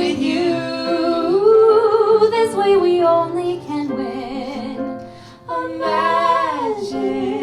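A woman singing long held notes with vibrato over light accompaniment: the closing notes of a musical-theatre song. A short break about five seconds in, then a last held note that slides down in pitch.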